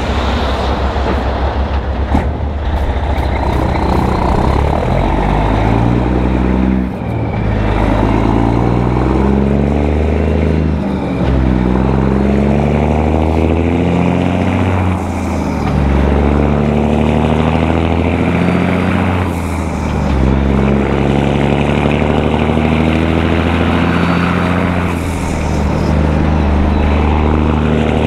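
Caterpillar 3406E inline-six diesel of a heavily loaded Peterbilt (103,000 lb gross) pulling through the gears, running through 6-inch stacks and an Aero Turbine 5050XL muffler. The revs climb, then drop at each upshift, five shifts about every four to five seconds. There is a sharp click about two seconds in.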